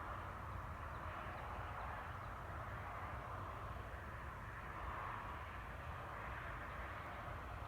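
An unexplained distant noise: a continuous hissing drone that slowly swells and fades every few seconds, over a low rumble.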